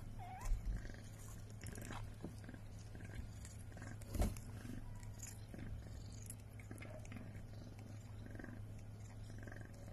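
Mother cat purring steadily while licking her newborn kittens, with small wet licking and mouthing clicks. Two dull thumps break in, about half a second in and, loudest, about four seconds in.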